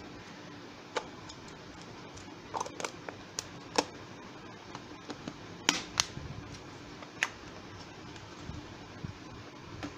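Scattered sharp plastic clicks and taps from handling an LED bulb: its plastic diffuser dome being pressed back onto the housing and the bulb being fitted into a lamp holder. A faint steady hum sits underneath.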